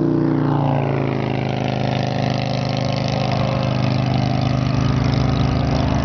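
An engine note drops in pitch over the first second or so, like a road vehicle passing close by. After that a steady low diesel drone holds, and a rumble grows as the Union Pacific freight train approaches.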